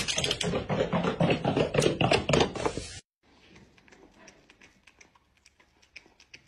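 A loud, dense clatter of sharp hits cuts off suddenly about three seconds in. Then a cat chews on a cob of corn with faint, quick crunching clicks.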